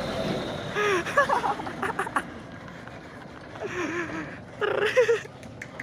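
Cargo truck's engine running as it pulls away, with short shouts from onlookers about a second in and again near the end.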